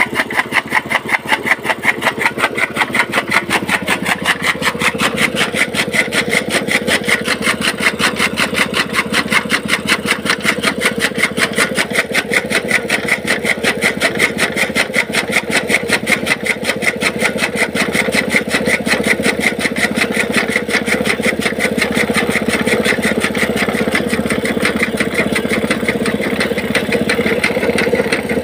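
Small petrol engine driving a toka chaff cutter that is chopping green fodder, the flywheel-mounted blades making a fast, even chopping rhythm over the steady engine drone. The pulsing grows less marked in the second half.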